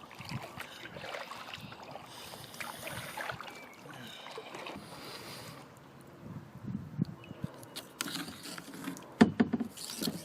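Kayak paddle strokes dipping and splashing in river water, irregular and soft, with a few sharp knocks near the end.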